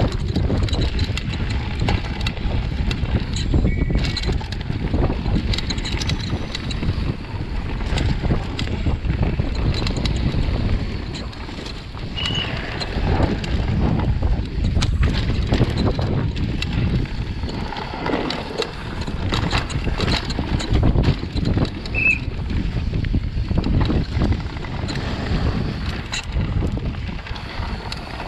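Scott downhill mountain bike at speed on a dry dirt trail, heard from a chest-mounted GoPro: a continuous rumble of tyres on dirt and wind on the microphone, with frequent knocks and rattles from the bike as it hits bumps.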